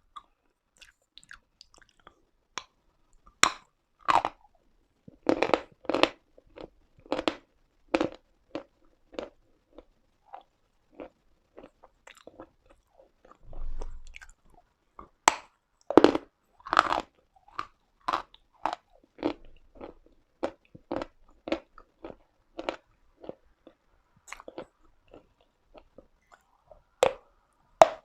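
Uslada brand edible chalk being bitten and chewed close to the microphone: a run of dry, sharp crunches, about one or two a second, with a quieter spell near the middle.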